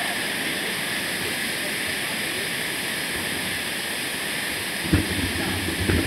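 Steady hiss of a mountain bike ride on a dirt forest trail, with two low thumps, about five seconds in and again near the end, as the bike jolts over bumps.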